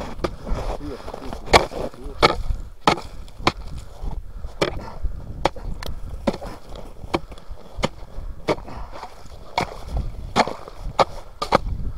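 Steel ice chisel striking and chipping into lake ice, one sharp strike roughly every three-quarters of a second, as a slot is chopped open through to the water.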